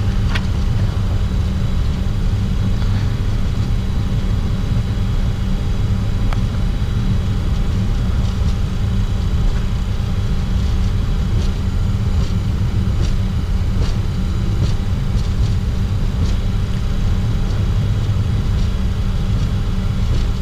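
Steady low rumble of cockpit noise in a Bombardier Challenger 604 taxiing, from its idling GE CF34 turbofans and the rolling of the aircraft, with a few faint ticks.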